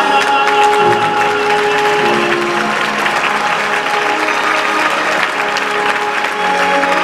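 Theatre audience bursting into applause, which breaks out at once and carries on over the orchestra's sustained closing chords.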